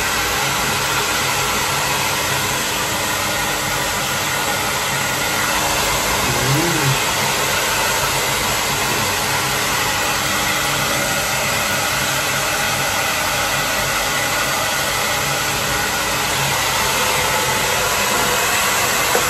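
Handheld hair dryer running steadily, a continuous rush of air with a faint steady hum, blowing on a small dog's wet coat to dry it after a bath.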